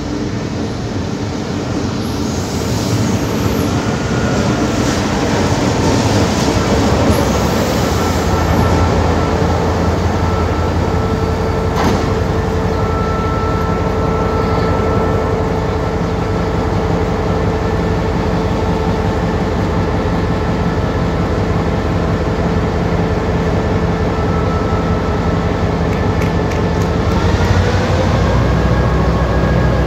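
Diesel locomotive of a passenger train running at the platform with a steady engine hum that grows louder over the first few seconds as it draws in. Near the end the engine note rises in pitch as it throttles up. A single sharp knock about twelve seconds in.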